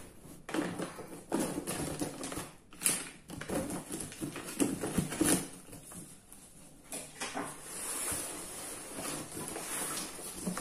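A cardboard box being opened by hand: its flaps scraping, flexing and being folded back, in irregular bursts of handling noise.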